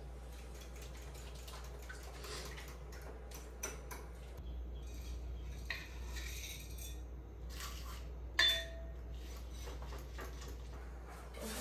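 Dishes and cutlery clinking and knocking during kitchen work, scattered light clicks with one sharp ringing clink about eight seconds in, over a low steady hum.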